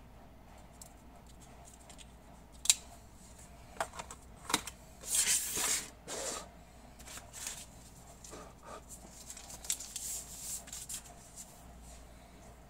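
Hands handling an unboxed smartphone, its coiled USB-C cable and its box: a sharp click a few seconds in, a few light taps, a rustling swish, then lighter rubbing and rustling.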